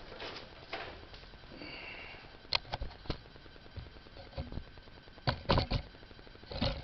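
Scattered sharp clicks and knocks of hand tools and metal engine parts being handled, a few single ones and then a quick cluster of three, as a spark plug is being pulled from the engine.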